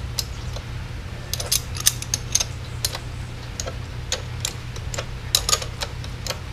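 Irregular light metallic clicks and ticks as a motorcycle's rear axle nut is worked loose by hand, over a steady low hum.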